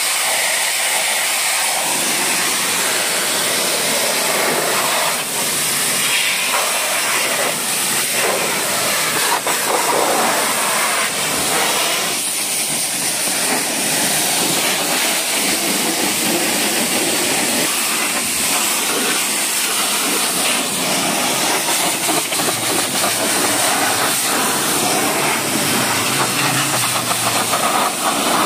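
High-pressure washer jet hissing steadily as it sprays water over a car's door sill, bonnet and wheel. The tone of the spray shifts a little as the jet moves across different surfaces.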